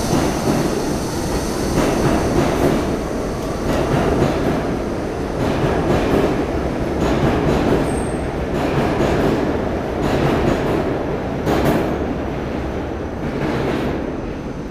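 R62A subway train pulling out of the station and running along the track, its wheels knocking over rail joints now and then, with a brief high squeal about eight seconds in. It gets a little quieter near the end as the last car draws away.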